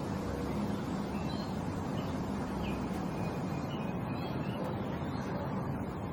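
Birds calling in short, scattered chirps over a steady background rumble.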